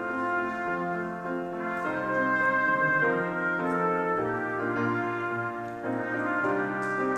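Instrumental music after the final blessing of a church service: full, held chords that change about once a second.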